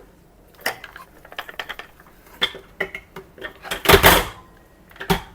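Hard plastic vacuum cleaner parts being handled at a sink: scattered clicks and knocks, with one louder clatter about four seconds in.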